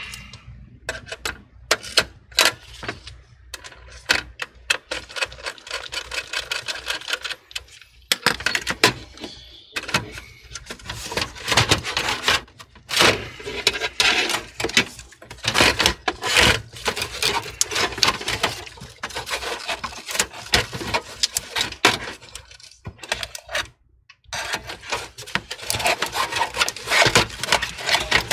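Many small clicks, taps and scrapes of a precision screwdriver and hands working on screws and parts inside a PC case, with a few short pauses.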